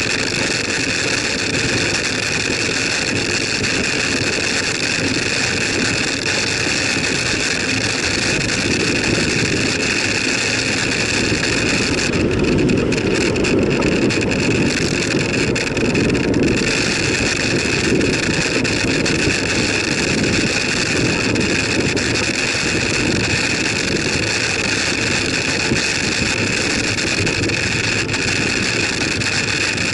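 Wind buffeting the microphone of a bicycle-mounted camera while riding, mixed with tyre and road noise and a steady high-pitched whine. A louder, deeper rush swells between about twelve and sixteen seconds in.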